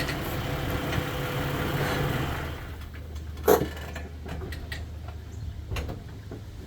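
A lifted Jeep's engine running with road noise, then dropping to a quieter steady idle about two and a half seconds in. A single sharp clunk comes about a second later, followed by a few lighter knocks.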